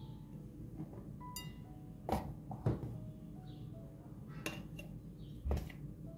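A metal spoon clinking against a bowl four times while flour is spooned into the dough, over soft background music.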